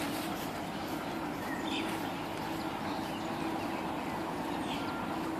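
Steady outdoor background noise with a low hum and a few faint, brief bird chirps.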